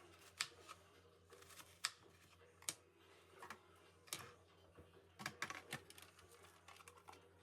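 Scattered sharp clicks and taps, about a dozen at irregular spacing with a quick cluster about five seconds in, over a faint steady hum.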